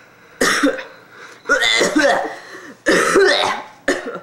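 A person coughing hard in about four separate bursts; the longest, near the middle, carries a rasping voiced sound.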